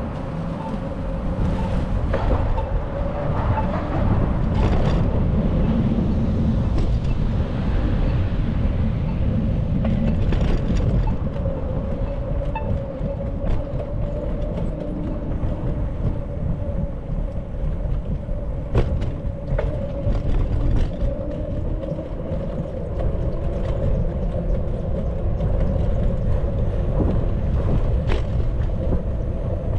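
Wind and road noise rushing over the microphone while riding a bicycle, with a steady whining hum underneath. A few sharp clicks come through, two of them close together about two-thirds of the way in and another near the end.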